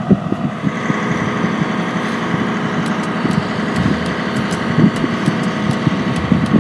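A motor running steadily, a constant mechanical hum.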